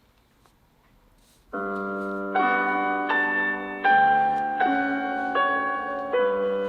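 Samsung Galaxy Note 20 Ultra ringtone starting about a second and a half in: a piano-like melody of held chords that change about every three-quarters of a second.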